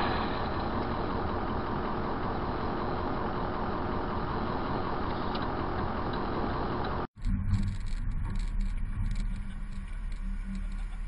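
Steady car engine and road noise heard from inside a vehicle through a dashcam, then a sudden cut about seven seconds in to vehicle engines idling in stopped traffic.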